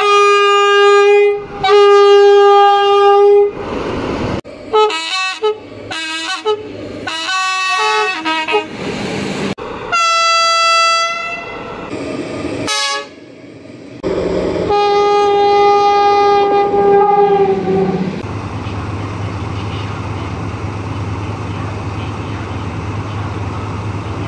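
Locomotive horns sounding in a series of blasts: two long single-note blasts, a run of short multi-note toots, a higher-pitched blast, then a long blast that sags in pitch as it stops. Then a steady low rumble of a train.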